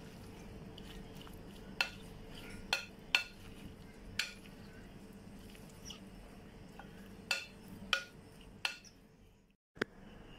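Wooden spoon tossing a chopped red cabbage and potato salad in a glass bowl, striking the glass in about seven sharp, ringing clinks at irregular intervals. A faint steady hum runs underneath, and the sound drops out briefly near the end.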